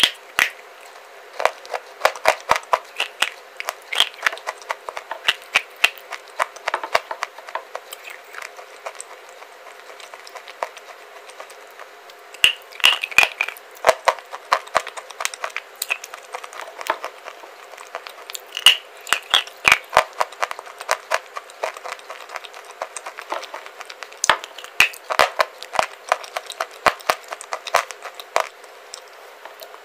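Close-up crunching of baked clay being chewed: dense runs of sharp cracks and crackles, broken by a few short pauses.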